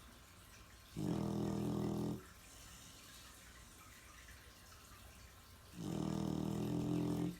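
Loud snoring: two drawn-out snores about five seconds apart, each a little over a second long.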